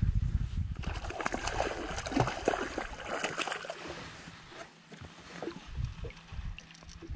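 A hooked northern pike splashing and thrashing at the surface as it is reeled to the boat and lifted from the water, with scattered clicks and knocks of fish and tackle. A low rumble marks the start, and the splashing eases after about three and a half seconds.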